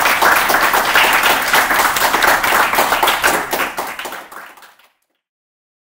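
A small group clapping their hands in applause, dense and irregular, fading out about four and a half seconds in.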